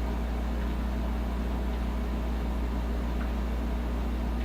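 Steady low hum with a few weaker steady tones above it, and a couple of faint ticks late on.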